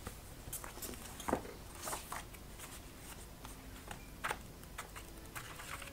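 A large paper schematic sheet being unfolded and smoothed out by hand: scattered paper rustles and crinkles, a few sharper ones about a second in and again past four seconds.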